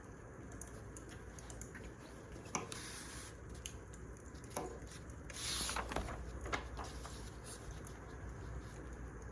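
Wood fire crackling: irregular pops and snaps over a low steady rumble, with a brief hissing rush about five and a half seconds in.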